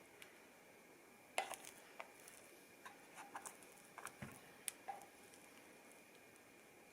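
Quiet scattered light clicks and taps, as of small objects being handled, with a soft low thump about four seconds in.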